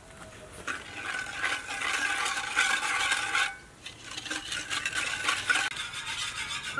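Wire whisk beating watermelon juice with starch and sugar in a stainless steel bowl: rapid scraping and clinking of the wires against the metal, with the bowl ringing. The whisking breaks off briefly about halfway, then resumes.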